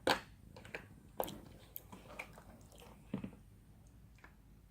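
Close-up mouth sounds of a person chewing food, with a few sharp clicks and knocks: one right at the start, one about a second in, and a small cluster about three seconds in.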